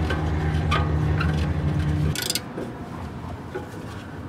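A steady low machine hum cuts off abruptly about two seconds in, followed by a brief hiss, then only faint handling noise.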